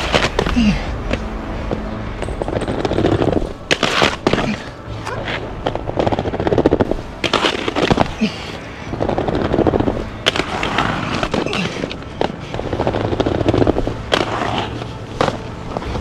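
Aggressive inline skates rolling over rough concrete in repeated runs. Several sharp clacks and scrapes come as the skates hit and grind on a concrete ledge.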